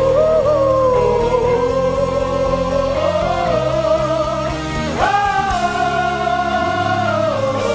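Live gospel worship music: a lead melody in long, held notes with slow bends, sliding sharply up into a new note about five seconds in, over steady band accompaniment.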